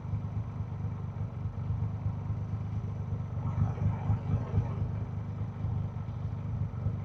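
Triumph Rocket 3 R Storm's 2.5-litre three-cylinder engine idling steadily at a standstill.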